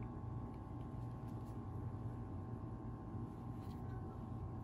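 Steady low room hum with a few faint light clicks.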